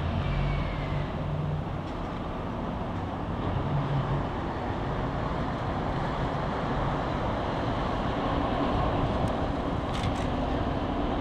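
Steady outdoor rumble of road and rail traffic: an even noise with a faint low hum and no distinct events.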